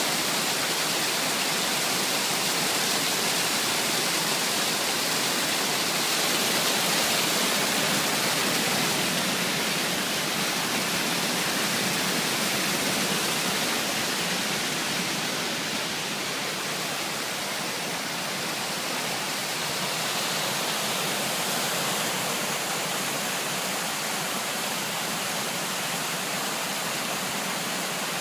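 Water fountain running: a steady rush of falling water.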